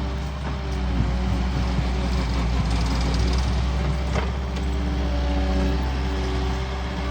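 Cat 259D compact track loader's diesel engine running steadily under working load, with a couple of sharp knocks about a second in and again about four seconds in.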